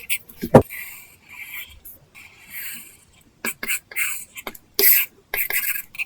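Apple Pencil tip drawing on an iPad Pro's paper-texture screen film: short scratchy strokes and quick taps, with one louder thump about half a second in.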